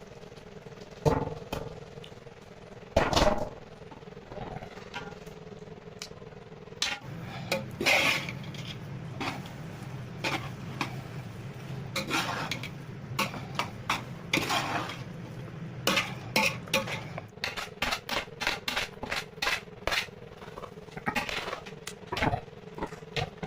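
Metal cooking utensils clinking and scraping against a pot, in irregular knocks that come faster in the second half, over a steady low hum.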